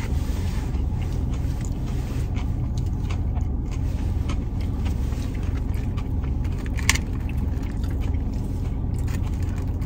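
Chewing and handling of a fried chicken sandwich and a napkin, small clicks and rustles over a steady low rumble in a car's cabin, with one sharper click about seven seconds in.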